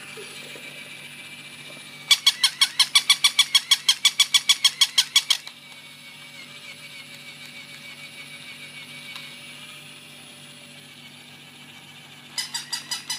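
Battery-operated plush toy puppy giving a rapid run of high squeaks, about seven a second, for about three seconds starting about two seconds in; a shorter run of the same squeaks comes near the end.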